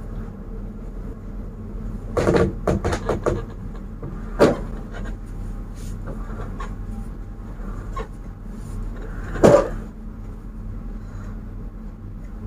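Knocks and thumps of a heavy sofa and its cushions being shifted and handled: a quick cluster of knocks about two to three seconds in, another knock at about four and a half seconds, and the loudest thump at about nine and a half, over a steady low hum.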